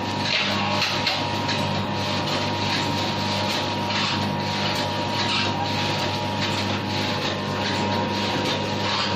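Automatic coffee sachet filling and packing machine running steadily: a constant motor hum with a hissy swish that repeats about every second and a half as the machine cycles.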